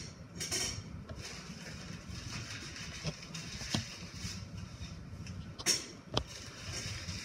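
Scattered small clicks, taps and rustles of hands handling boiled eggs and kitchen things on a table, three sharper knocks among them, over a steady low room hum.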